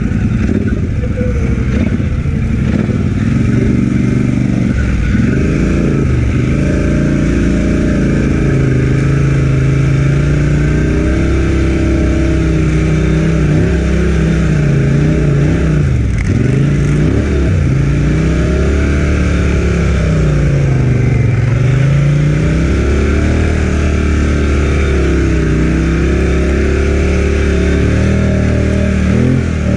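Polaris Sportsman 1000XP ATV's twin-cylinder engine running under throttle while riding, its pitch rising and falling over and over as the throttle is worked on and off.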